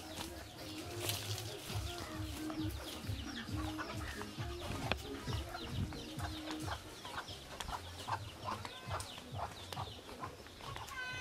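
Chickens clucking, with birds chirping.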